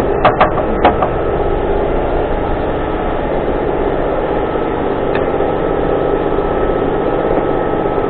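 A 2017 Ford Taurus turbocharged engine idling steadily, with a few sharp clicks in the first second.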